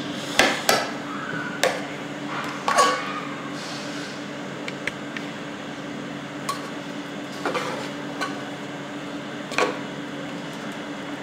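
A metal spoon clinking and knocking against a metal cooking pot and a plate as biryani is dished out: several sharp clinks in the first three seconds and a few more later on, over a steady low hum.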